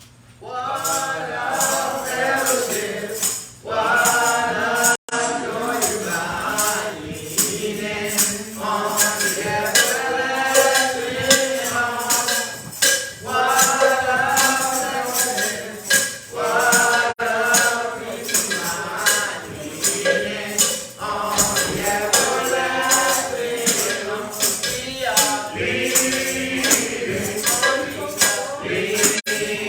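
Voices singing a church song with a tambourine struck on a steady beat, about two jingles a second. The music starts about half a second in.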